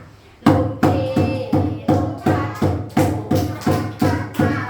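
Music with a steady percussion beat starts about half a second in, nearly three beats a second, under a sustained melody.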